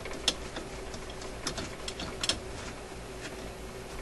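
A cloth rubbing and wiping over the metal record-changer mechanism of an RCA Victor 65U, cleaning off old dried grease with alcohol. Small parts click and tick now and then, sharpest about a quarter second in and again around two seconds in, over a faint steady hum.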